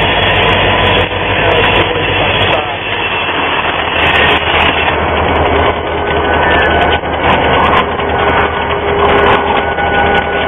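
Florida East Coast Railway diesel locomotive No. 720 passing at close range: a steady low engine drone under a dense rumble of the train on the rails. From about halfway through, a faint thin whine runs above it.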